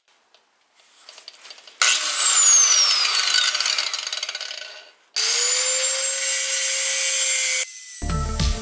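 Angle grinder working on the rusted, seized stabilizer-bar link bolt. The first run of about three seconds starts suddenly, its high whine falling in pitch as it tails off. A second, steady run of about two and a half seconds then cuts off abruptly, and music comes in at the very end.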